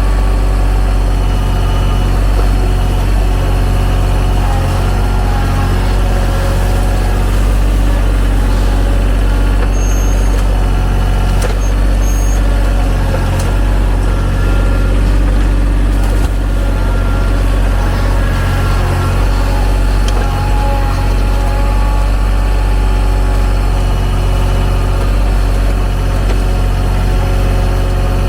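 TYM T313 sub-compact tractor's diesel engine running steadily at a constant speed, with a few faint clicks about ten to twelve seconds in.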